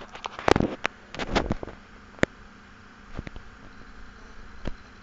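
Irregular sharp clicks and crackles from a desktop PC, a cluster of them at first and then single pops a second or so apart, over faint hiss. This is the unexplained noise the owner puts down to either the i5-4670K processor or the XFX Core Pro 550W power supply.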